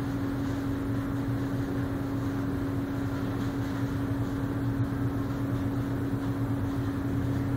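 Steady mechanical drone from machinery at a supermarket's loading dock: a constant low hum carrying one unchanging tone, with no breaks or change in pitch.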